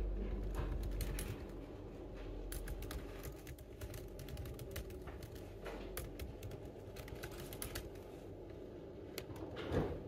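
Typing on an Apple MacBook laptop keyboard: irregular soft key clicks, with a brief louder thump near the end.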